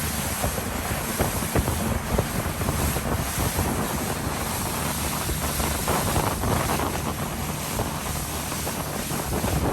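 Wind buffeting the microphone over the steady rush of water and the motor of a speedboat under way at sea.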